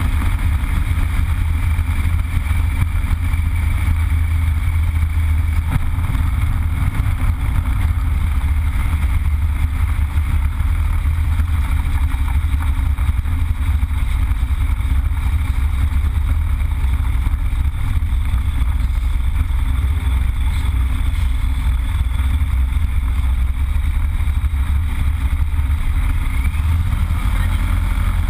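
Yak-52's nine-cylinder Vedeneyev M-14P radial engine running steadily with the aircraft on the ground, heard from inside the cockpit, with air rushing past.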